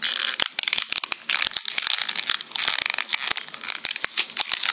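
Plastic-and-cardboard blister packaging of a toy wrestling figure being handled close to the microphone: a steady run of crinkling and crackling with many sharp little clicks.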